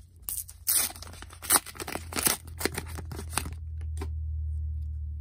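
Wrapper of a pack of footy trading cards being torn open by hand: a run of sharp crackling rips and crinkles over about three seconds, loudest in the first second and a half.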